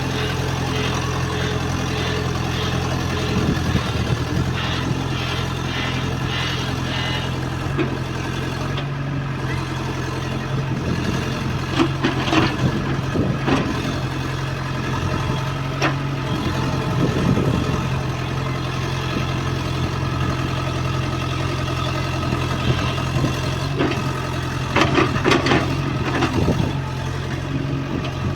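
EX70 excavator's diesel engine running steadily, with a few sharp metallic clanks about halfway through and again near the end.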